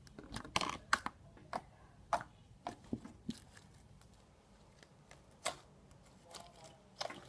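Fluffy slime being stretched and squished by hand, giving irregular sticky clicks and crackles.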